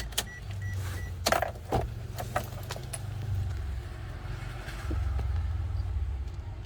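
Ignition key being turned on a 2012 Daihatsu Terios whose battery is too weak to crank the engine: a few sharp clicks and a low hum, but the engine does not turn over. A beeping tone stops about a second in.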